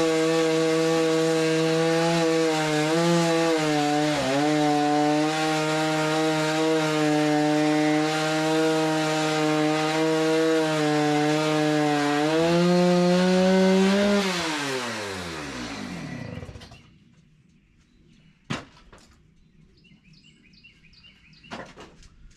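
Chainsaw running at high speed, cutting into black oak, with its pitch dipping briefly twice under load. It revs up near the end of the cut and is then shut off, its pitch falling away to quiet about 16 seconds in. Two sharp knocks follow.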